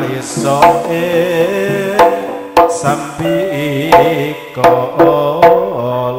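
Javanese campursari ensemble playing: sustained, wavering melodic lines over sharp hand-drum strokes at irregular intervals.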